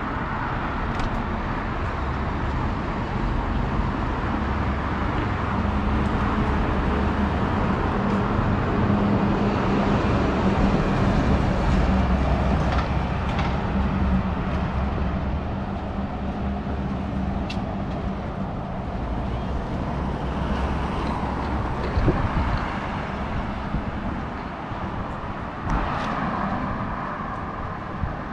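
Street traffic: a steady low rumble, with a large vehicle's engine swelling past about a third of the way in and fading, and a few short knocks.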